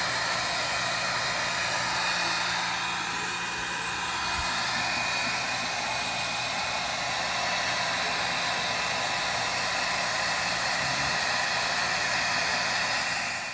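Handheld hair dryer running steadily: a constant airy hiss with a faint steady whine.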